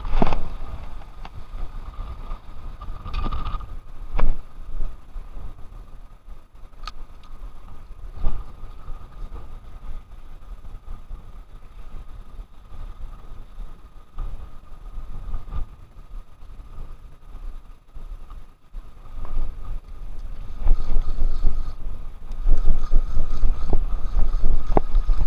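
Wind gusting against the microphone as a low rumble, much stronger in the last five seconds, with a few sharp clicks in between.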